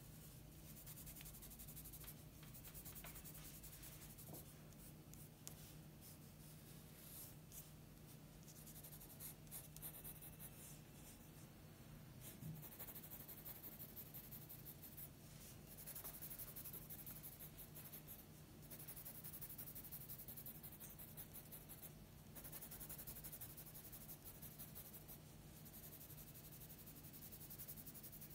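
Graphite pencil scratching faintly on paper in quick runs of short hatching strokes as fur is shaded in, the scratching coming thicker in stretches over the second half.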